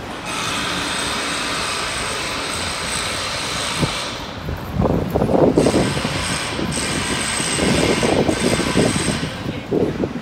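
City street noise: a steady rush of traffic, turning rougher and more uneven about four seconds in.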